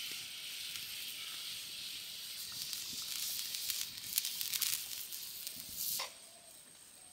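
Pan of fish curry boiling with a steady sizzling hiss and a few light clicks partway through. It cuts off abruptly about six seconds in.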